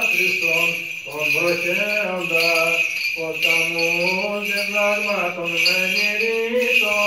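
Byzantine chant sung by a male cantor in a slow, drawn-out melismatic line, over the continuous jingling of small bells, typical of a censer being swung during Vespers.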